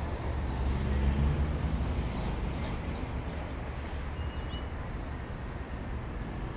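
Street traffic noise: a steady low vehicle rumble with road noise, a little louder about a second in.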